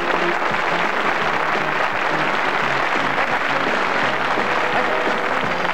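Audience applauding, a dense steady clatter of clapping, over circus band music.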